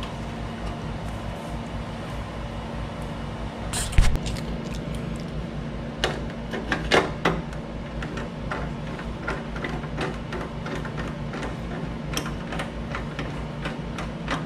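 Small clicks and knocks of the chrome tank console and its bolts being handled and started by hand on a motorcycle fuel tank, with one sharp knock about four seconds in and a cluster of rattling clicks around six to seven seconds. A steady low hum runs underneath.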